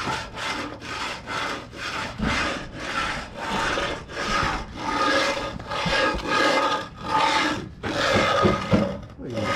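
Hand groover scraping back and forth through fresh concrete to cut a double-groove control joint: a rhythmic rasping, nearly three strokes a second, with a couple of short pauses near the end.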